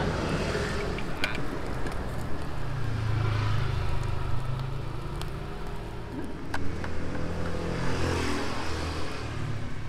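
Road traffic passing close by, motor vehicle engines running, with a few sharp clicks.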